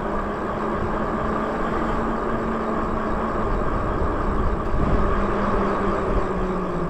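Electric bike riding at speed: wind rushing over the handlebar-mounted microphone, with a steady hum from the hub motor and tyres. The hum drops in pitch near the end as the bike slows.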